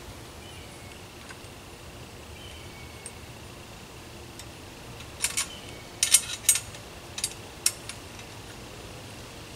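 Half-inch open-end wrench clinking on a tree stand's bracket nut and bolt as it is tightened: about six sharp metal clinks over two and a half seconds, starting about halfway in.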